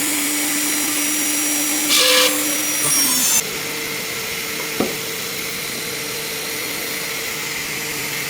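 CNC router running with a steady machine whine. There is a short blast of air hiss about two seconds in and another around three seconds. The steady tone then changes to a slightly higher pitch, and a single click follows near the five-second mark.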